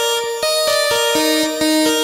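Korg wavestate synthesizer playing its "Mega Lead" patch, raw with no added effects: a quick sequence of notes, about four a second, each with a clicky attack, and a lower note joining about a second in.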